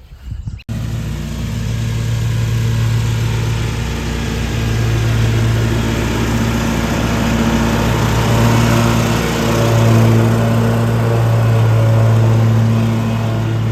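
Commercial stand-on lawn mower's Kawasaki 1000 cc engine running steadily under load with its cutting deck engaged. It starts abruptly under a second in.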